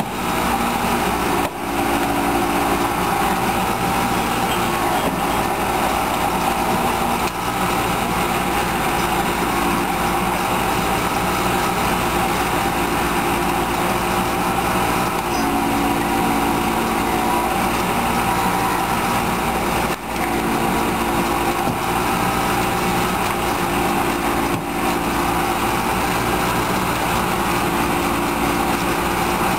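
Small gasoline engine of a hydraulic rescue-tool power unit running steadily, driving the pump for the spreader hoses, its note shifting now and then.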